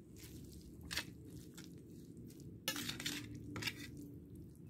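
Metal spoon clinking and scraping against a stainless steel pan as instant noodles are tossed and stirred in oil, a few separate sharp clinks with a louder cluster a little under three seconds in.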